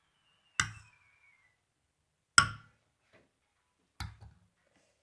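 Three sharp clinks about a second and a half apart, a metal spoon knocking against kitchenware; the first leaves a short ringing tone.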